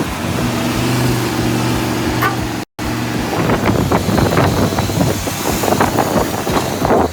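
Heavy vehicle engine running with a steady low hum. It cuts off abruptly a little before the middle, then gives way to rougher, irregular vehicle noise.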